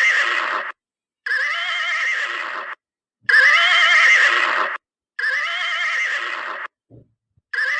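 Horse whinnying: the same wavering call, about a second and a half long, repeated about every two seconds with silent gaps between.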